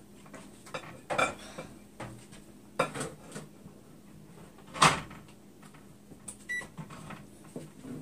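Scattered knocks and clicks as a microwave's power cord and plug are handled and pushed into a wall outlet, the loudest about five seconds in. About six and a half seconds in, a short electronic beep from the Hamilton Beach microwave as it gets power.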